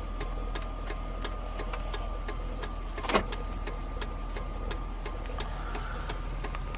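GMC truck idling just after a cold start, heard from inside the cab: a steady low hum with a thin steady high tone over it and a light, even ticking about three times a second. A sharper click comes about three seconds in.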